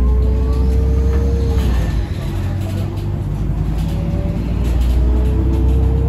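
Iveco Urbanway 18 Mild Hybrid articulated city bus driving, heard from inside: a steady low drivetrain rumble. A steady whine sounds over it for the first second and a half, stops, and returns about five seconds in.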